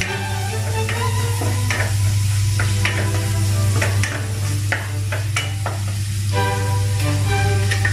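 Wooden spatula stirring sautéing onions in a metal pot, with a sizzle and several sharp scrapes and knocks against the pot wall.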